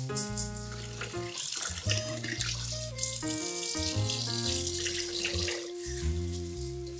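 Tap water running onto grain being rinsed by hand in a stainless steel colander over the sink, with background music playing.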